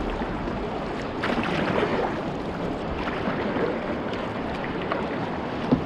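River water rushing and splashing around a whitewater canoe just below a rapid, with a sharp knock near the end.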